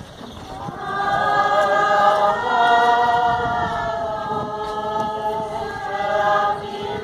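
Many voices singing a hymn together, with long held notes that swell about a second in.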